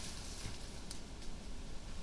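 Steady low rumble and hiss from an outdoor camera microphone, with two faint, short ticks about a second apart.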